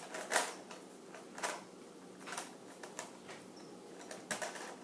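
Plastic Rubik's cube being turned by hand, its layers clacking as they rotate: about five sharp clicks, roughly one a second.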